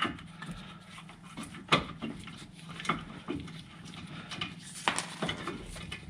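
Scattered metallic clicks and taps, about one a second, of an Allen-key tool working a guide pin bolt on a VW Golf Mk4 front brake caliper: the bolt is being lined up and started in its thread.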